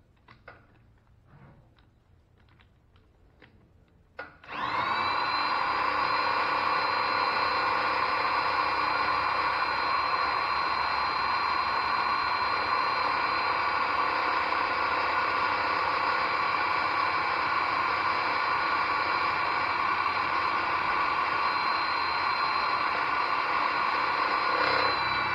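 A few light clicks, then about four seconds in a corded electric drill starts. It runs steadily with a whine, spinning the car's belt-driven Waterman mechanical fuel pump through a primer adapter to prime and pressurise the fuel system before the engine is started.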